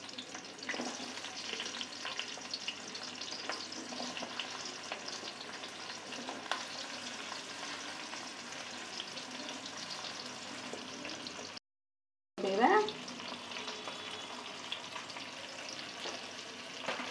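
Chopped onions and green chillies frying in hot oil in a kadai, a steady crackling sizzle. The sound drops out completely for under a second about two-thirds through, then comes back with a short louder burst.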